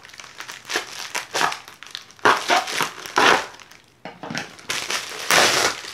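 Plastic bubble mailer being ripped open and handled, crinkling and crackling in repeated bursts, loudest about two seconds in and again near the end.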